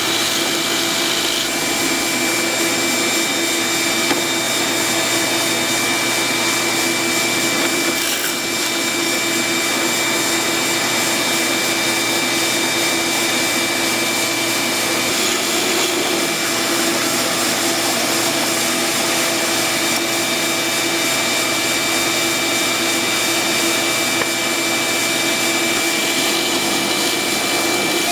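An electric shop machine or power tool running steadily, a constant whir with a fixed hum and whine and no change in speed.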